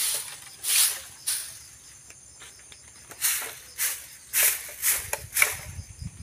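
Long-handled broom sweeping leaves and grit across bare dirt into a metal dustpan: a series of short swishes, with a pause of about two seconds in the middle.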